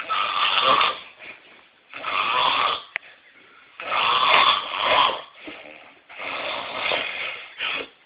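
A man snoring loudly: four rasping snores about two seconds apart, each about a second long, with quieter breathing between them.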